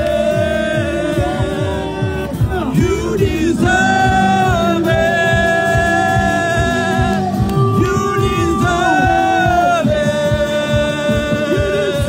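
Live worship music: a singer holding long, wavering notes over a band.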